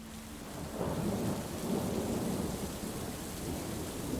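Steady rain with a low rolling rumble of thunder, fading in over the first second.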